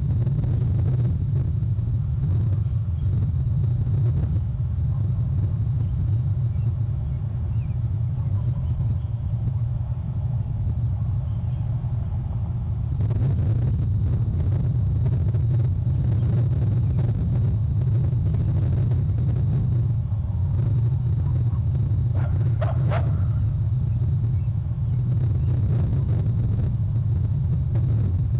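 Steady low rumble picked up by an outdoor nest-camera microphone, with a faint high electronic whine. A brief sharper sound comes about 22 seconds in.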